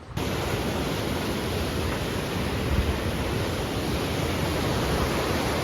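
Fast snowmelt river rushing: a loud, steady, even rush of white water that cuts in abruptly at the start.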